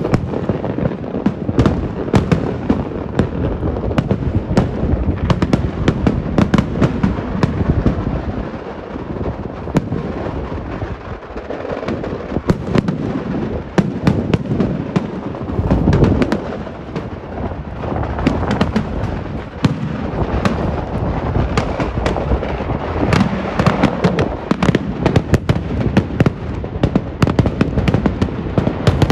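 Daytime Kerala fireworks (vedikettu): a dense, unbroken barrage of rapid bangs and cracks from aerial crackers bursting overhead, easing slightly a third of the way in, with a deep boom about sixteen seconds in.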